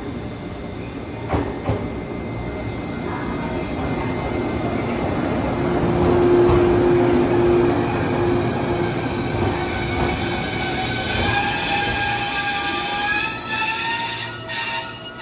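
Shinano Railway 115 series electric multiple unit pulling into the platform, its wheels and running gear rumbling past with a few clicks early in the pass. Over the last few seconds high squealing tones set in as the train slows to a stop.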